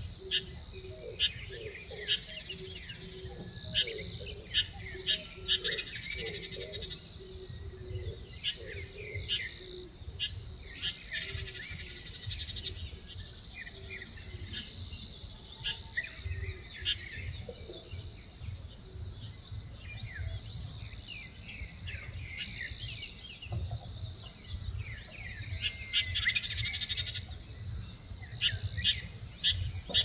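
Birds chirping in woodland: many short, sharp high calls come in clusters throughout, over a steady high hiss. For roughly the first ten seconds a lower note repeats about twice a second.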